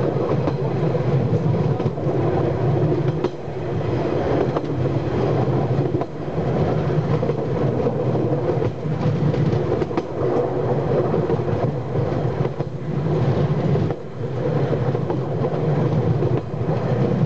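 Heritage railway carriage rolling along the track, heard from its open rear balcony: a steady rumble of wheels on rail with occasional knocks.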